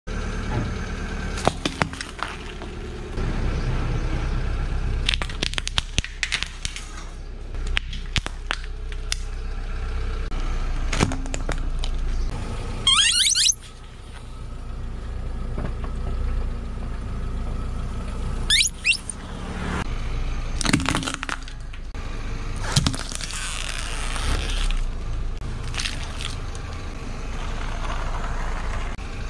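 A car rolling slowly over objects on pavement with its engine running low, and a string of cracks and crunches as things are crushed under the tyre. Twice, about halfway through and again a few seconds later, rubber ducks give a high squeal as the tyre squashes them.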